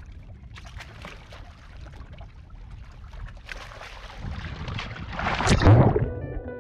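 Low steady wash of wind and water, then a person sliding off a boat's stern into the sea with a splash that builds and is loudest about five and a half seconds in. Music starts just before the end.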